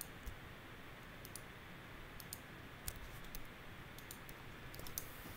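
Faint computer mouse clicks, about a dozen short sharp clicks, many in quick pairs, over a low steady hiss.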